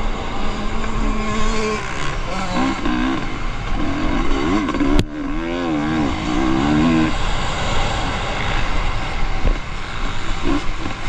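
Off-road racing motorcycle engines revving, their pitch rising and falling over and over as the throttle is worked, with more than one bike heard at once.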